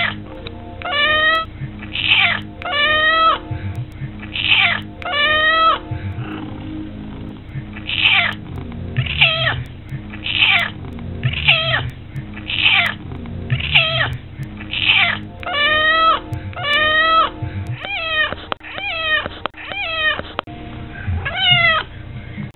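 Orange tabby cat meowing over and over, about one loud meow a second, some in quick pairs and a run of shorter ones near the end: a hungry cat begging for breakfast.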